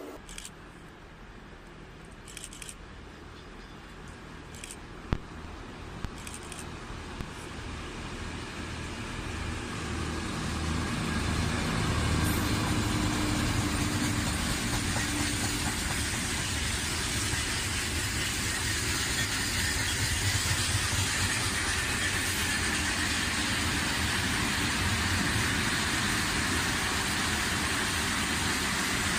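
A diesel-hauled freight train passing: the engines of its two diesel locomotives grow louder as they come past, then the long line of wagons rolls by with a steady rolling noise on the rails. A single sharp click about five seconds in.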